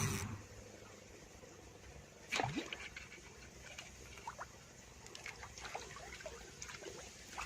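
Faint small splashes and trickling water, with one louder splash about two seconds in followed by scattered light drips and ticks.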